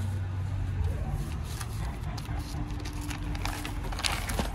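Low steady background rumble. Near the end comes crisp rustling of white paper as a folded length of fabric wrapped in it is opened out by hand.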